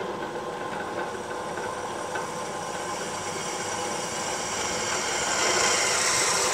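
100 V Japanese-market benchtop drill press running with a twist bit cutting a hole through a steel angle bar: a steady hiss of cutting that grows louder and higher near the end.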